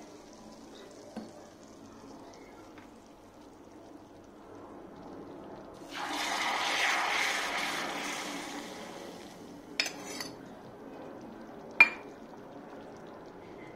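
Liquid poured from a stainless-steel bowl into a pot of boiling yogurt stew for about three and a half seconds, over the low bubbling of the stew. This is followed by a metal spoon clinking against the pot twice, the second clink the loudest sound.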